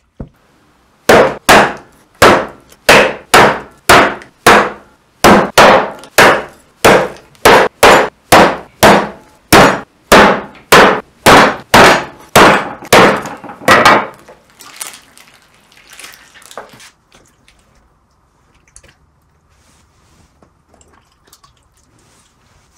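Heavy meat cleaver chopping through a sheep's head on a wooden cutting board: about thirty hard, even blows, two or three a second, for roughly thirteen seconds. Then a few softer knocks, fading to faint handling and rubbing sounds.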